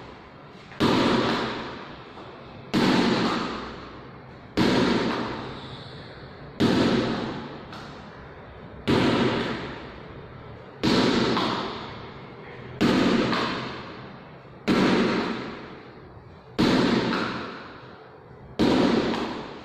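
A ball struck hard against a floor in a catching drill, about once every two seconds: ten sharp impacts, each ringing out for over a second in a bare, echoing hall.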